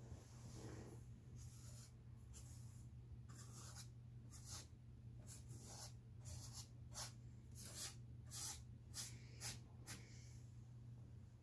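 Flat paintbrush swishing over stretched canvas in a series of short, scratchy strokes, about a dozen, faint, coming quicker toward the end.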